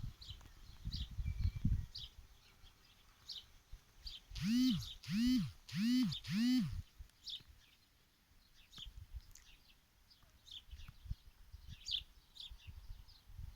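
Small birds chirping on and off, with four loud calls in quick succession about four and a half seconds in, each rising and then falling in pitch. A few low thumps come in the first two seconds.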